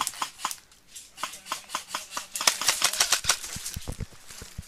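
Airsoft electric guns firing: runs of quick, evenly spaced shots in several bursts, with a few duller knocks near the end.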